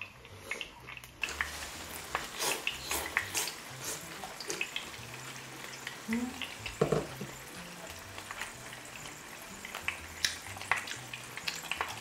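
Close-miked eating sounds: wet chewing and smacking of pickled onion with grilled beef large intestine, with many small clicks. Quiet background music with a stepping bass line runs underneath.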